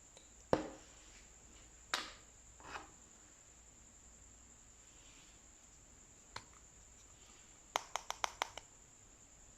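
Slime being pressed and pulled by hand, giving a few sharp sticky pops and then a quick run of about six clicks near the end.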